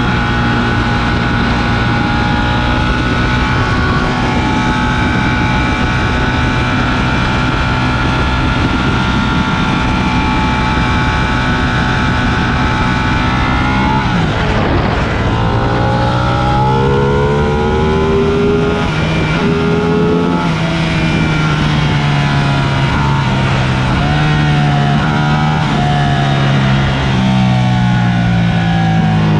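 Sport motorcycle engine under way, holding a steady speed at first, then revving up and down through gear changes from about halfway on, with wind rushing over the microphone.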